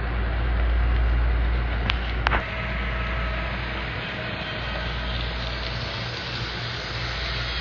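Model passenger train running along layout track: a steady rolling hum with a low rumble. Two sharp clicks come about two seconds in, after which the rumble eases.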